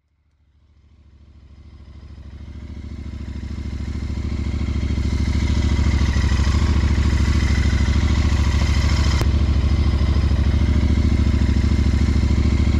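Royal Enfield Interceptor 650's parallel-twin engine idling steadily, fading in over the first few seconds.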